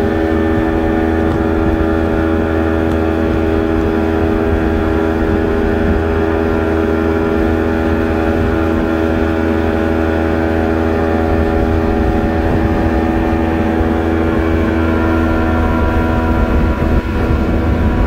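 Outboard motor running steadily at high speed, pushing the boat fast enough to throw a wide wake, its engine tone even throughout over a rush of water and wind.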